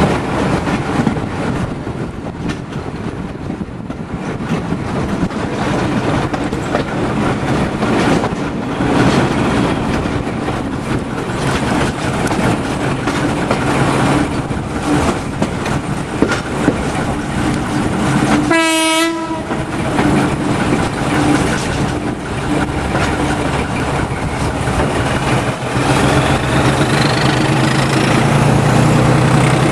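Class 14 diesel-hydraulic shunter D9521 running along the line, its engine working under the clatter of wheels on rail joints. About two-thirds of the way through it gives one short horn blast.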